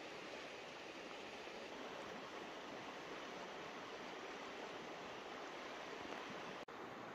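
Faint, steady rush of flowing river water. It drops out for an instant near the end.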